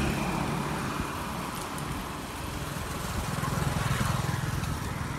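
A motor vehicle's engine passes on the road, its hum growing to a peak about three to four seconds in and then easing, over steady wind and road noise from riding along on a bicycle.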